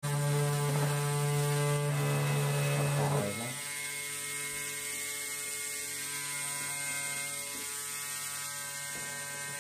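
Small DC motor of a homemade miniature table saw running free, spinning its little circular blade with a steady mechanical hum. About three seconds in the sound wavers and drops to a quieter, steady running hum.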